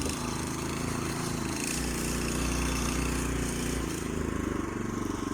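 Small motorcycle engine revving under load while trying to pull out of mud. Its low note swells for about two seconds in the middle, then eases.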